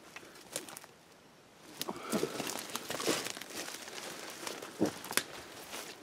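Dry leaves and brush crackling and rustling underfoot as someone walks through forest undergrowth, mostly from about two seconds in, with a few sharp twig snaps near the end.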